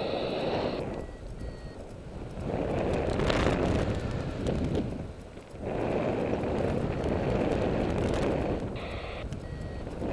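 Airflow rushing over the microphone of a paraglider in flight, swelling and easing several times. A short electronic beep from the flight instrument pod sounds at the start and again near the end.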